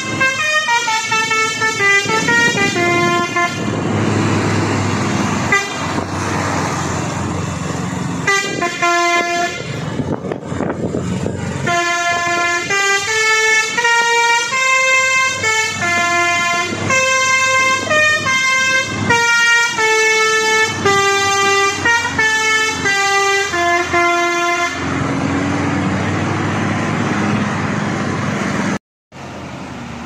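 Indonesian truck's multi-tone telolet horn playing a quick tune of stepped notes, in three runs with gaps, the longest in the middle. Near the end the horn stops, and truck engine and road noise with a low rising pitch follows.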